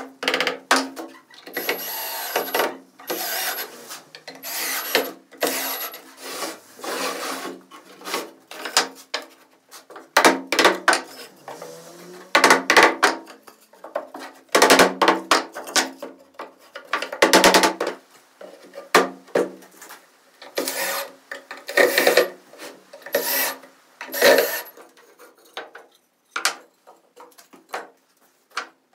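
Wood being rubbed and scraped by hand in a long run of short, irregular strokes.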